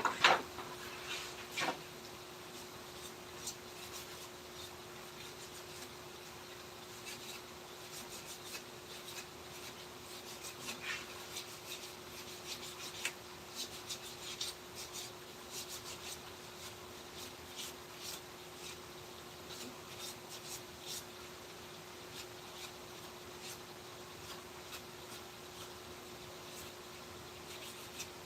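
Short, irregular scrapes and light ticks of a hand tool working a wooden carving, with a sharp knock right at the start and the strokes thinning out over the last several seconds. A steady low hum runs underneath.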